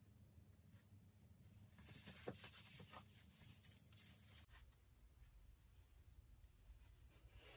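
Near silence, with a faint rustle of fabric for about a second, starting about two seconds in, as grey leggings are pulled up over the hips.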